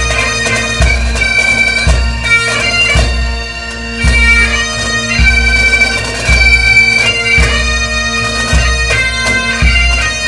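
Bagpipe music: steady drones under a chanter melody, with a bass drum beat about once a second.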